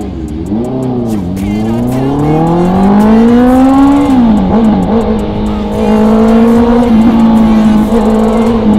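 Honda CB650R's inline-four engine pulling away: the pitch wavers at first, climbs steadily under acceleration, drops sharply about four seconds in at a gear change, then holds nearly steady as the bike cruises.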